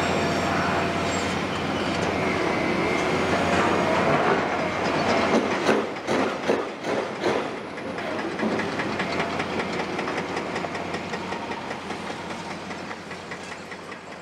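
Caterpillar 352F excavator with its C15 ACERT diesel working a pile of demolition rubble: a steady mechanical din with a burst of sharp knocks and clattering concrete rubble about six to seven seconds in, then a finer regular clatter that fades toward the end.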